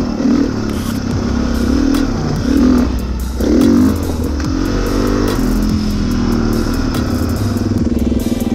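Honda 450 dirt bike engine under way on a trail, its revs rising and falling again and again as the throttle opens and closes, with the loudest surge about three and a half seconds in.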